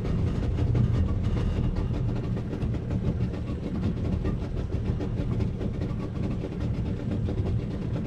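Boat engine running steadily with a low, even hum.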